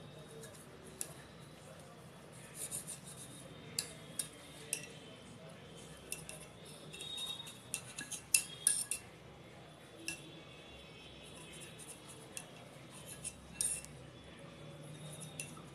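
Kitchen knife cutting the crusts off slices of bread on a stone board: the blade scrapes and taps against the stone in irregular clicks, with a cluster of sharper taps about eight seconds in.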